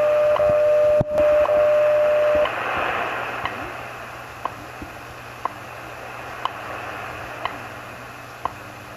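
WWV time and frequency standard station received on 15 MHz through a Heathkit SB-310 shortwave receiver. A steady tone with a short gap at each tick stops about two and a half seconds in, while the second ticks go on once a second over shortwave static.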